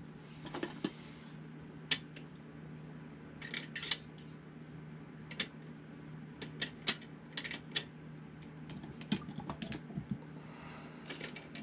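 Small metal tools and parts clicking and clinking on a workbench as they are handled, in irregular taps a second or so apart, over a steady low hum.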